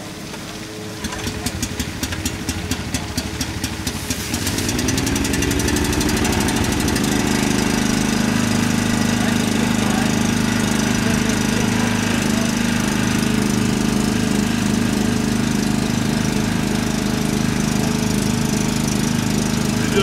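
An engine starting: about a second in, a quick train of even firing knocks begins and speeds up. Near five seconds it revs up with a short rising pitch, then runs steadily.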